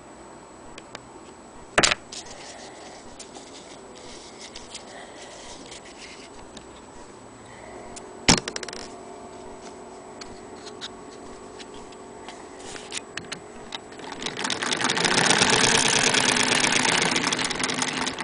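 Antique Frister & Rossmann sewing machine running, a fast, loud mechanical clatter that starts about fourteen seconds in and lasts about four seconds. Earlier come two sharp clicks some six seconds apart.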